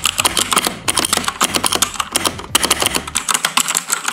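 Fast typing on a Cosmic Byte CB-GK16 mechanical keyboard with Outemu Blue clicky switches: a dense run of sharp clicks, broken by a couple of brief pauses.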